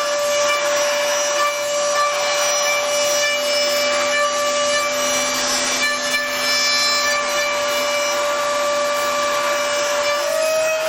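CNC machine cutting: a steady spindle whine with a dense cutting hiss over it, the whine stepping up slightly in pitch near the end.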